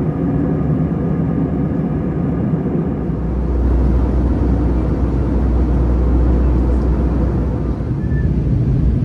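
Steady engine and airflow noise inside the cabin of an Airbus A321 in flight, from its IAE V2500 engines and the air rushing past the fuselage. A deeper rumble comes in about three seconds in and drops away shortly before the end.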